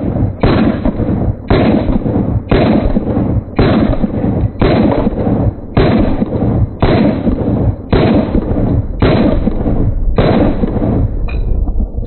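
Glock 23 pistol firing .40 S&W rounds at a steady slow pace, about one shot a second, ten shots in a row, each shot trailing on until the next; the firing stops about eleven seconds in.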